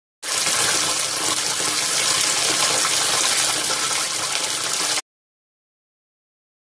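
Bathtub tap running, water pouring steadily from the spout into a partly filled, sudsy tub. It cuts off suddenly about five seconds in.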